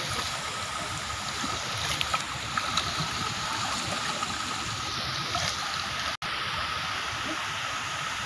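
Steady rush of running water, with water spilling over the rim of a large metal cauldron-shaped tub into a pool. A few brief sharp sounds come about two to three seconds in, and the sound drops out for an instant about six seconds in.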